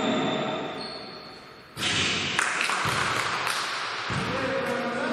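Basketball game sound in an indoor hall: high squeaks and thuds of play. It fades away over the first second and a half, then cuts back in suddenly, with knocks and hall noise.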